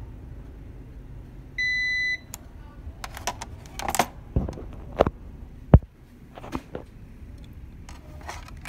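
Multimeter continuity buzzer giving one steady beep of about half a second, about a second and a half in, as the test probes bridge a line of the scanner's flat ribbon cable: the sign of an unbroken conductor. Then several sharp clicks and knocks of the probes and cable being handled, the loudest about two-thirds of the way through.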